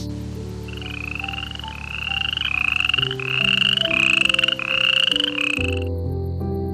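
An animal giving about eight short buzzy calls in quick succession, each rising slightly in pitch, over background music; the calls stop about six seconds in.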